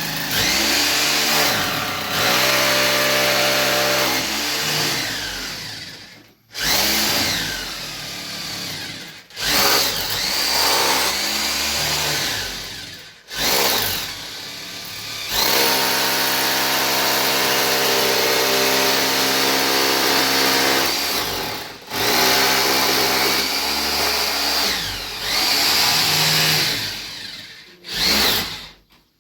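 Handheld electric power tool, such as a drill or grinder, run in repeated bursts of several seconds each. The motor whines up to speed at the start of each burst and winds down at the end, with short pauses between.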